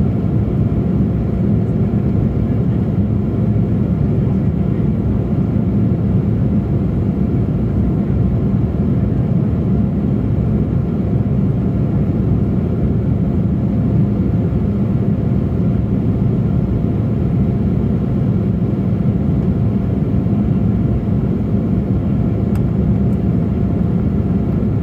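Steady cabin noise of an Embraer E175 airliner in flight, heard from a window seat by the wing: the deep, even rush of its two GE CF34 turbofan engines and the airflow, with a faint steady tone above it.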